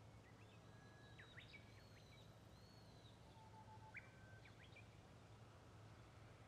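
Faint birds chirping a few short calls over a low steady hum; otherwise near silence.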